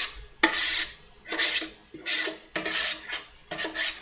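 A utensil scraping out a bowl of deviled-egg yolk filling in repeated short strokes, about six in four seconds, gathering the last of the mixture.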